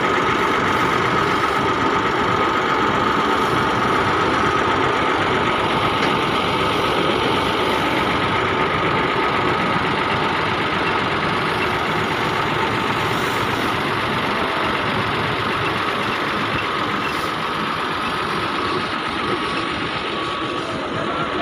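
Tractor engine running steadily as it tows a water tanker that is spraying water over the ground, with the spray's hiss mixed in.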